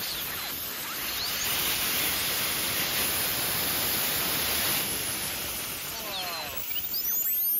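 Small model-aircraft jet turbine (a size-60 unit of about 13 lb thrust) running, a steady rushing hiss of exhaust with a very high, thin whine over it. Near the end the rush thins and the high whine slowly sinks in pitch.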